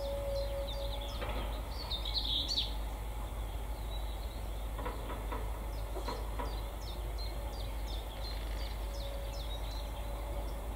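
Excavator working a loaded peat wagon over a lorry. A steady engine hum drops away about a second in, and a few short clanks come around the middle as the peat is tipped out. Over a low rumble, a songbird repeats a short, falling chirp about twice a second.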